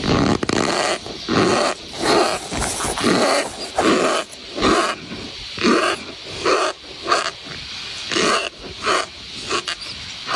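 Compressed cornstarch bar being squeezed and crumbled in the fingers close to the microphone, giving a series of short squeaky crunches, about one a second.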